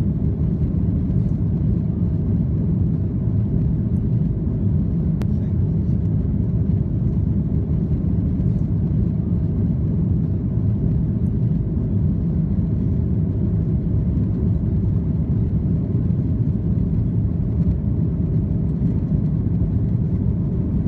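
Boeing 737 airliner in flight: a steady low rumble of engines and airflow.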